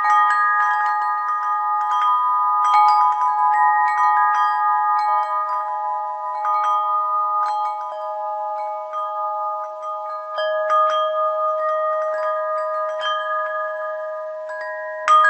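Tuned metal bells chiming at random, like wind chimes: clusters of light strikes whose tones ring on and overlap in a sustained shimmer. A fresh, louder strike comes at the very end.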